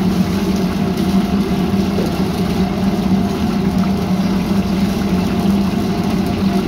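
Commercial gas wok range running: the burners give a steady, continuous roar with a low hum underneath.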